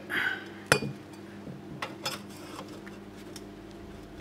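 A few sharp metallic clinks and knocks, the loudest about a second in, as metal tools and exhaust parts are handled, over a steady low hum.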